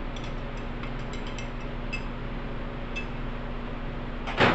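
Small clicks and light clinks as squeeze bottles and a plastic measuring cup are handled on a workbench, over a steady low hum. Near the end comes one short, louder, noisy burst.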